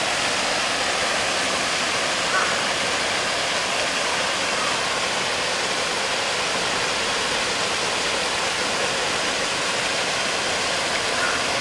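Steady splashing and rushing of a small fountain jet falling into the river water.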